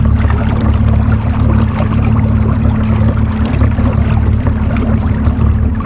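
Electric trolling motor running steadily at low speed, a constant low hum with a faint whine, over light water noise.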